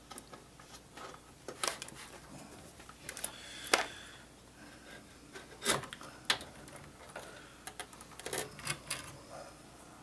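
Hard plastic and metal computer parts being handled: scattered clicks and knocks with some rubbing as a cable is plugged into a drive and the drive is fitted into a desktop PC case. The sharpest knocks come about 4 and 6 seconds in, with a quick run of clicks near the end.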